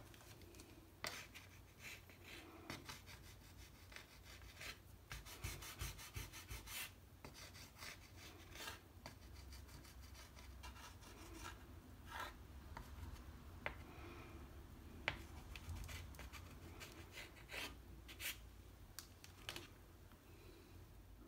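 Soft pastel stick stroked and rubbed across textured watercolour paper: faint scratchy strokes, with a quick run of short strokes about five to seven seconds in.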